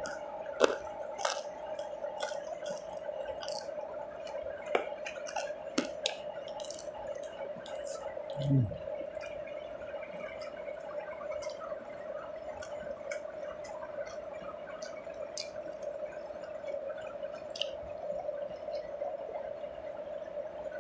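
Close-miked eating sounds: wet chewing, lip smacks and sharp little mouth clicks from a person eating fried rice and grilled eel by hand, over a steady hum. About eight and a half seconds in comes a brief low sound that falls in pitch.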